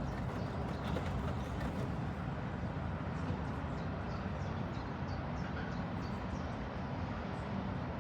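Portable front-loading washing machine running a hot boil wash: a steady low rumble from the turning drum, with faint light ticks.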